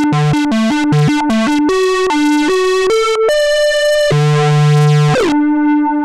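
Minimoog Model D synthesizer playing a quick staccato riff, then longer notes stepping upward. About five seconds in, a note glides down in pitch and is held, ringing on as it fades.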